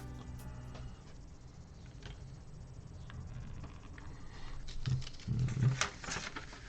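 Plastic Lego pieces being handled and fitted together: small clicks and rustles, clustering and growing louder about two-thirds of the way through.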